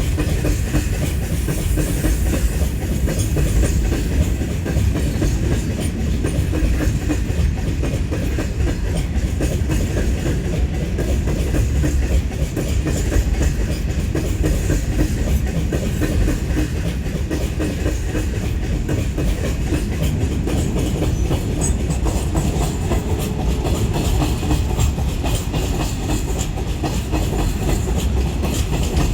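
Goods train of BCNHL covered hopper wagons rolling past, a steady clatter of wheels on the rails.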